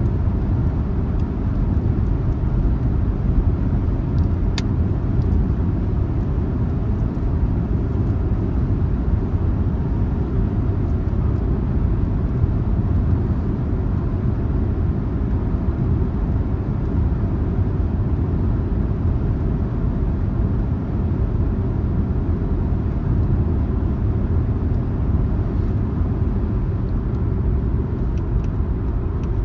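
A car driving along the road: a steady low rumble of tyres and engine.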